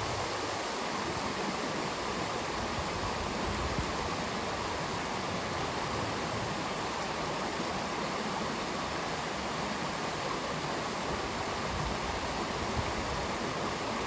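Shallow rocky stream rushing and splashing over small cascades between boulders, a steady, even rush of water.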